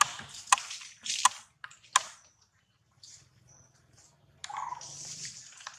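A baby macaque screaming while an older monkey pins it down among dry leaves: a few sharp, crackly bursts in the first two seconds, then a longer harsh scream from about four and a half seconds in, a distress protest.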